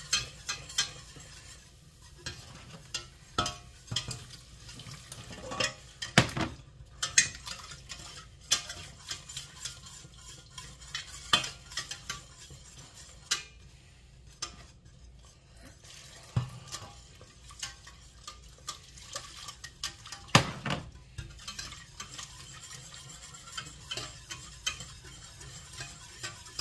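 Wire whisk stirring chicken stock into a roux in a stainless steel pot, with irregular clinks and clicks as the whisk strikes the sides and bottom of the pot.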